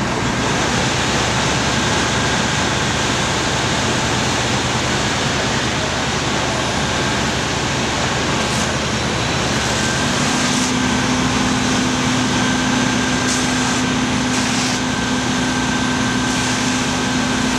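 Fire engines' and tower ladders' diesel engines running steadily while pumping water to hose lines: a loud, even mechanical drone and rush, with a steady hum joining about ten seconds in.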